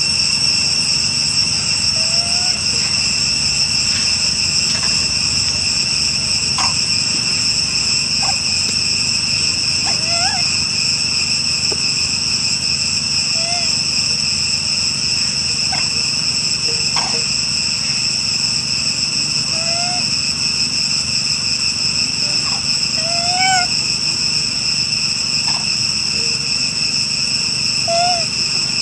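Steady, high-pitched drone of an insect chorus, with short rising chirp-like calls every few seconds.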